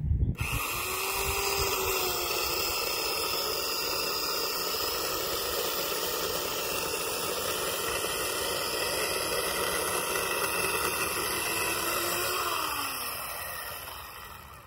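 Corded electric chainsaw starting up and cutting steadily into the base of a tree trunk, its motor pitch holding even, then winding down near the end as the trigger is released.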